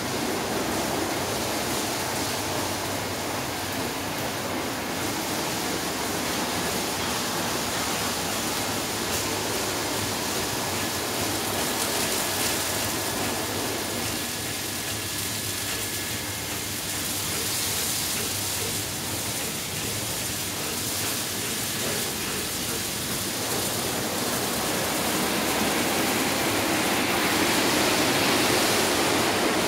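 Automatic car wash machine running: water spraying and tall rotating brushes scrubbing along a car's body, a steady rushing hiss that grows a little louder near the end.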